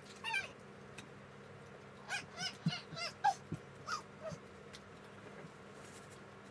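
A young girl's short, high-pitched squeaky vocal noises: one falling squeal just after the start, then a quick run of about five squeaks about two seconds in, and a couple more shortly after.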